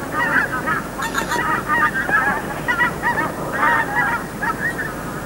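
A flock of wild geese honking in flight, many overlapping calls in quick succession.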